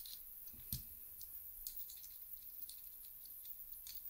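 Faint small metal clicks and taps as a small bolt is picked up and threaded into the off-axis guider's metal ring, with one sharper tap a little under a second in.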